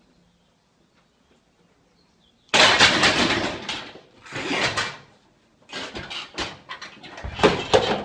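Near silence for about two and a half seconds, then a man's loud, strained grunting and groaning in rough, noisy swells as he struggles under a heavy barbell pinned on him during a failed bench press.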